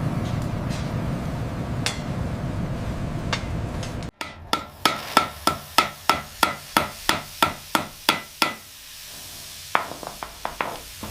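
A steady rushing noise that cuts off abruptly about four seconds in. A run of sharp, evenly spaced taps follows, about three a second for some four seconds, then a few scattered taps near the end.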